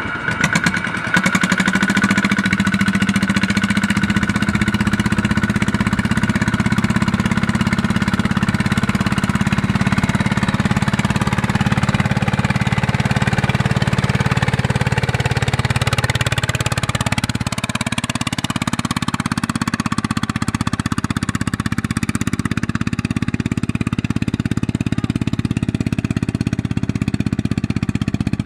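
Single-cylinder diesel of a Kubota ZT155 two-wheel walking tractor running hard under load, dragging a rice-laden trailer through deep mud with a fast, steady firing beat. The engine note changes about two-thirds of the way through.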